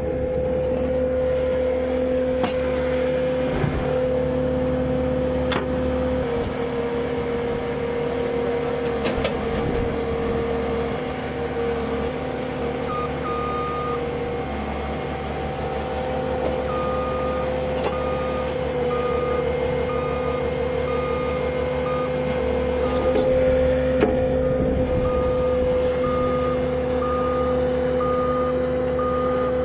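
Heavy machine's engine running steadily, with a reversing alarm starting to beep about halfway through and then beeping at an even pace.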